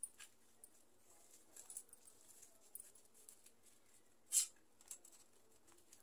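Quiet eating sounds: soft scattered clicks and mouth smacks of chewing, with fingers tearing a butter roti. There is one louder sharp click a little over four seconds in.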